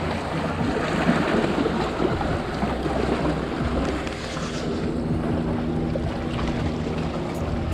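Wind buffeting the microphone over waves washing against jetty rocks, a steady rushing noise. About halfway through, a steady low hum joins it.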